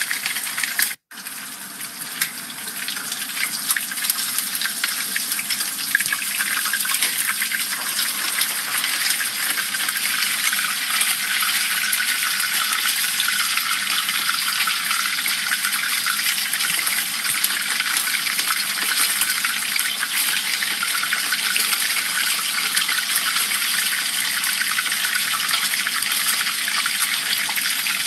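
Hot oil sizzling and bubbling steadily around whole dorado fish deep-frying in a pan, cutting out briefly about a second in.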